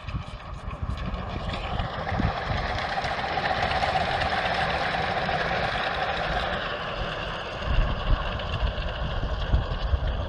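Two miniature-railway steam locomotives double-heading a train past, their running noise swelling to a peak about four seconds in and then easing as the train moves away. Wind buffets the microphone over the last few seconds.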